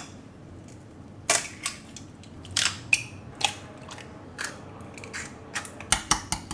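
Dishes and utensils being handled: sharp knocks and clinks at irregular intervals, with several in quick succession near the end.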